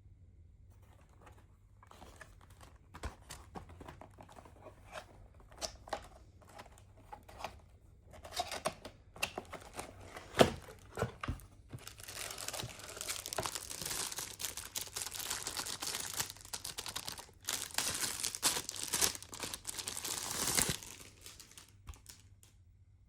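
Packaging being opened: scattered rustles and clicks, a sharp knock about halfway through, then a long stretch of continuous tearing and crinkling that stops suddenly near the end.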